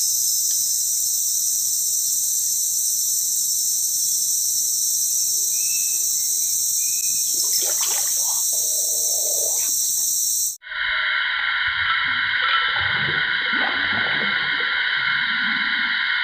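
Steady, shrill drone of a dense insect chorus in tropical forest, several high-pitched tones at once. About ten seconds in it cuts off for an instant and comes back as a lower-pitched insect drone.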